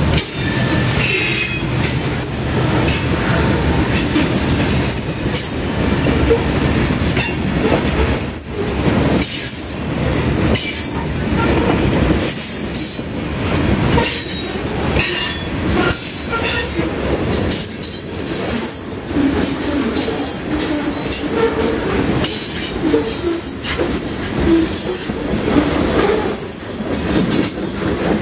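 Freight train of covered hopper cars rolling past, with a steady rumble of steel wheels on the rails. Short high-pitched wheel squeals come and go irregularly throughout.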